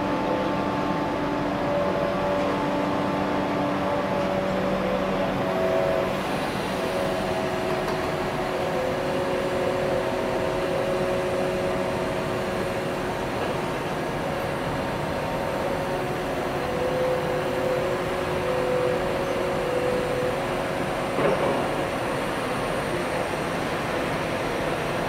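EP20 dual-system electric locomotive approaching with a passenger train: steady running noise with several humming tones that come and go and step up and down in pitch, and a single knock about 21 seconds in.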